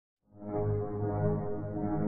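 Music: a held chord over a low drone, fading in about a quarter-second in and sustained steadily.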